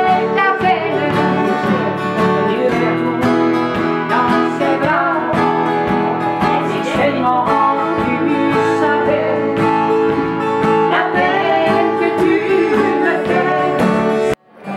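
A woman sings a song while two acoustic guitars are strummed. The music cuts off abruptly near the end.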